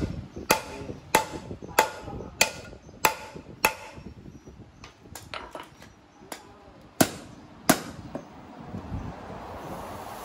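Hammer striking steel. Six hard, evenly spaced blows a little over half a second apart, each with a short metallic ring, then a few lighter taps and two more hard blows. A steady hiss comes in near the end.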